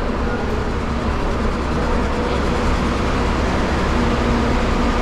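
Intercity coach engine idling close by: a steady low rumble with a faint hum over it.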